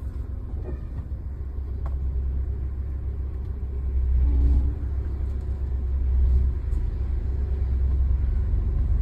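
Cabin of a Suzuki hatchback on the move: a steady low rumble of engine and road noise. It swells a little about four seconds in and again about six seconds in.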